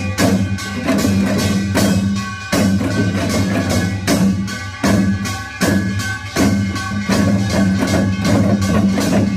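Korean pungmul percussion playing a Yeongnam nongak rhythm: a fast, steady run of sharp strikes over sustained low ringing tones.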